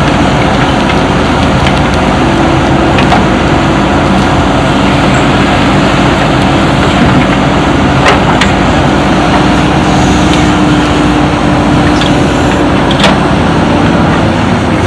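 Heavy diesel engine running steadily under load, with a few sharp knocks, two of them close together about eight seconds in.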